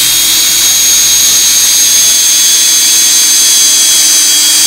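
Cordless drill running at steady high speed, its motor giving a loud, even whine as it bores a pilot hole into a block of oak.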